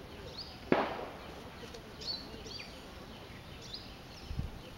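A single sharp bang about a second in, over short, high, falling bird chirps repeated every second or so, with a low dull thump near the end.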